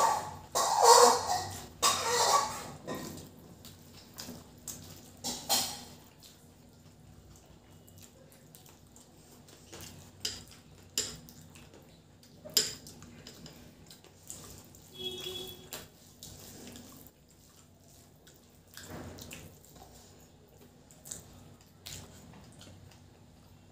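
Hand-eating sounds: fingers squishing rice and egg curry on a steel plate, with wet chewing and lip smacks. The loudest bursts come in the first three seconds, followed by scattered short smacks and clicks.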